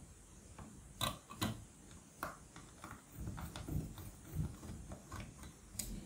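Small screwdriver turning screws into a laptop's plastic underside: scattered sharp clicks with soft scraping and grating between them.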